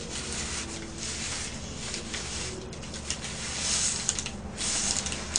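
Irregular rustling and crinkling of paper wrapping and a paper napkin as hands pick through a pile of fried chicken, with small crackles here and there.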